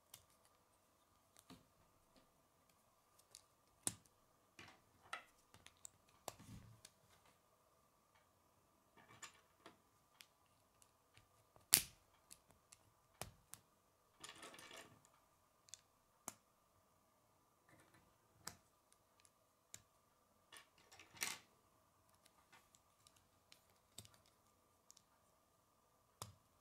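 K'nex plastic rods and connectors clicking and snapping together as they are handled and fitted, in scattered sharp clicks, the loudest about twelve seconds in. A faint steady hum runs underneath.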